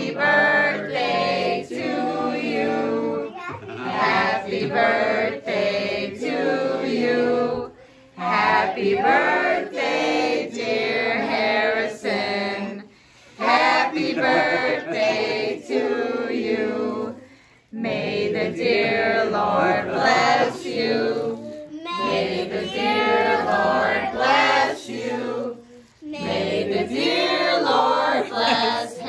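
A group of children and adults singing a birthday song together, in phrases a few seconds long with short breaks between them.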